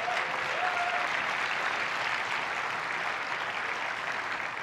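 Large auditorium audience applauding steadily, the clapping beginning to die down near the end.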